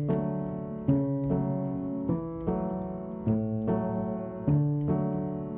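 Background piano music: notes and chords struck every half second to a second, each ringing and then fading.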